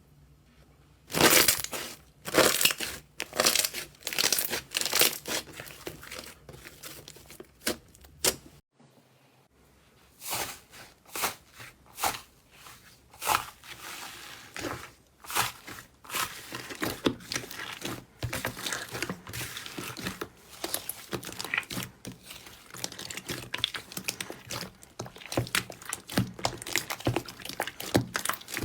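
Slime being squeezed and pressed by hand, giving repeated crackling and popping clicks. A brief gap comes a little under 9 s in, then the crackling resumes, denser and quicker.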